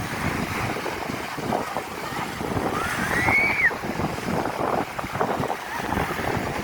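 Strong wind buffeting the microphone over waves washing onto the shore, a steady rushing with uneven gusts. About three seconds in, a short high call rises and then falls.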